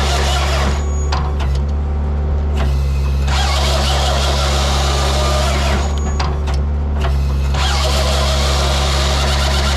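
Skid steer's diesel engine running steadily under load while the hydraulic saw bar of a Halverson 140B firewood processor cuts through logs. The cuts come in repeated bursts of a couple of seconds each, ending with short pauses and clicks: one ends just under a second in, another runs from about three to six seconds in, and a third starts near the end.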